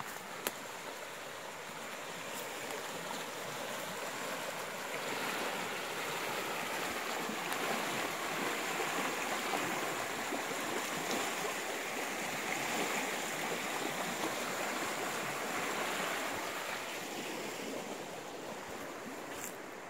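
Creek water rushing over rocks: a steady hiss that swells louder through the middle and then fades again.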